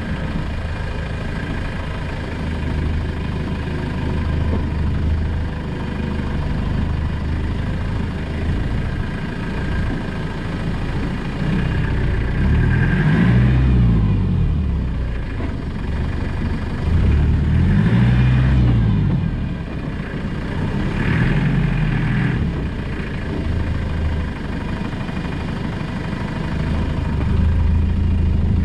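Land Rover Discovery's 200Tdi four-cylinder turbodiesel engine running as the vehicle is driven off-road, its revs rising and falling three times around the middle and later on.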